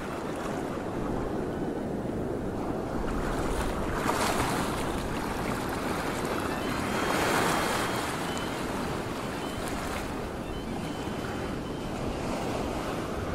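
Ocean surf washing in, a steady rush of waves that swells about four seconds in and again around seven seconds.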